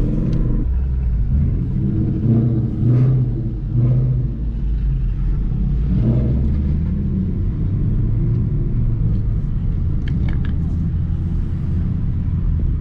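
Engine and road noise heard inside a 2021 Toyota Supra's cabin while it drives slowly: a steady low rumble whose note rises and falls a little two to four seconds in.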